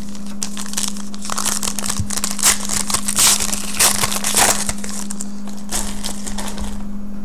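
A foil trading-card pack wrapper crinkling and tearing as it is opened by hand, densest in the middle and thinning out near the end. A steady low hum runs underneath.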